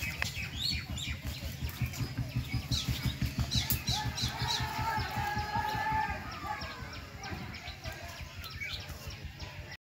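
Small birds chirping and a chicken calling, over a low, rapidly pulsing rumble; the chicken's call is loudest from about four to six seconds in. The sound cuts off suddenly near the end.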